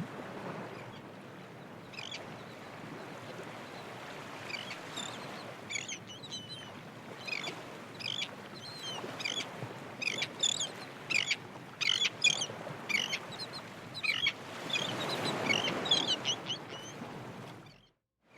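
Birds calling in a rapid series of short, high chirps over a steady rushing background.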